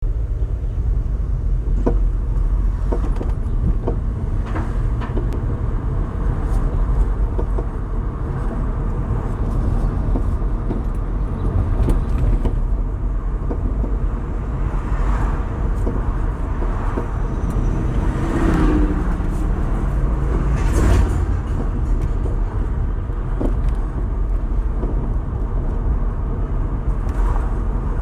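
2017 Honda Civic sedan driving, with a steady low road rumble and a clunk from the passenger-side front every few seconds, at irregular intervals.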